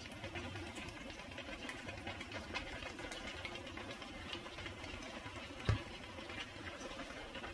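Gas stove burner running with a steady low rumble under a pan of simmering cream sauce, with small crackling ticks from the bubbling sauce. A single dull thump about six seconds in.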